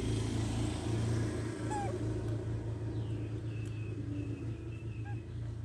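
A steady low hum, with a few faint, short, high-pitched animal squeaks and chirps over it.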